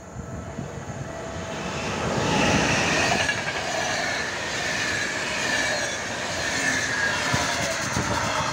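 PKP Intercity passenger train, electric locomotive and coaches, passing close by at speed. Its running noise swells as the locomotive draws level about two seconds in, then the coaches roll by with high ringing wheel-on-rail tones that slowly fall in pitch.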